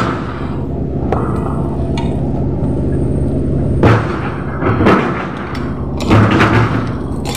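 Handheld jackhammer breaking very hard concrete, in short loud bursts from about four seconds in, over a steady low hum.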